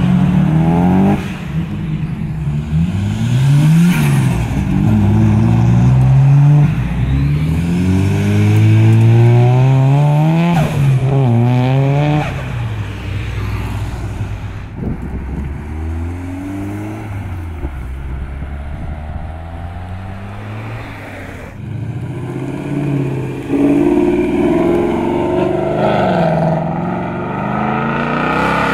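Car engines accelerating hard: one car's exhaust climbs in pitch through several upshifts over the first twelve seconds and fades. After a quieter stretch, another car's engine grows louder near the end.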